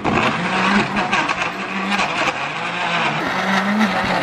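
Countertop blender running hard on frozen milk cubes with powdered chocolate, its motor hum wavering up and down in pitch as the load shifts. It is struggling: the liquid spins while the frozen chunks stay whole, so the blender is not powerful enough for the job.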